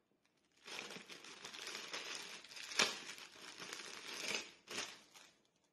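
Clear plastic packaging crinkling and rustling as it is handled and opened, with a sharper crackle about halfway through and another near the end.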